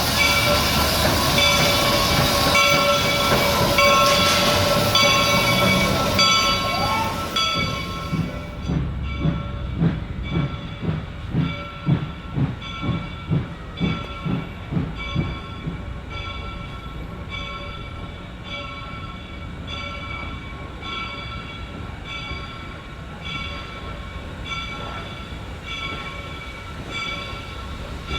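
Reading & Northern 425, a 4-6-2 steam locomotive, working its train: a loud hiss of steam that cuts off suddenly about eight seconds in, then about two exhaust chuffs a second that fade away over several seconds.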